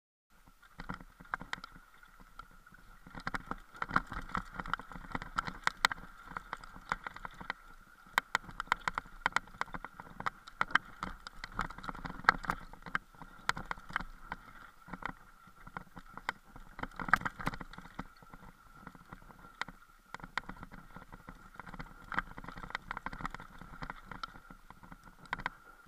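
Camera rattling and knocking as it jolts down a rough, rocky dirt trail: many irregular sharp knocks over a steady high buzz.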